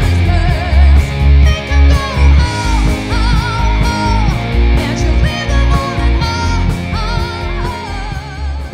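Live rock band playing: a woman sings lead with vibrato over electric guitar, bass guitar, keyboard and drum kit, with heavy bass notes landing about twice a second.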